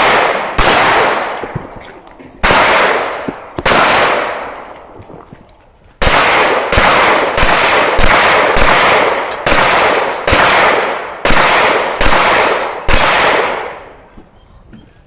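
Rifle shots in a string of about a dozen, each loud crack echoing and dying away. They come a second or two apart at first, then from about six seconds in settle into a steady pace of roughly one shot every 0.7 seconds. A faint metallic ring from the steel plate targets being hit follows several shots.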